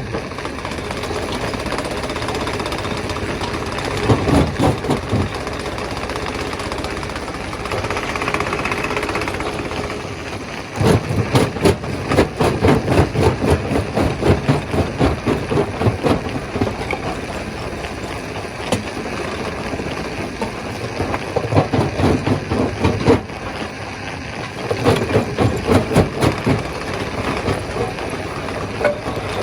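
Stone crusher running steadily, with several spells of rapid, rattling knocks lasting a few seconds each.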